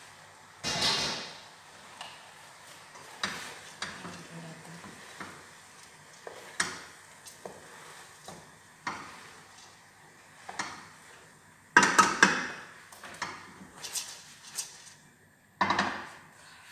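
Stainless steel cooking pot and utensils clattering: irregular metal knocks and scrapes as the pot is handled and worked, with the loudest clatters about a second in, around twelve seconds in and near the end.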